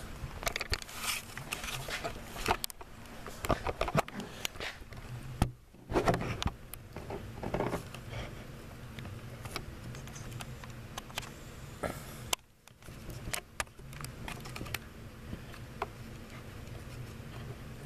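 Handling noise from a camera being carried and set in place: scattered clicks, knocks, scrapes and rustling over a faint low hum.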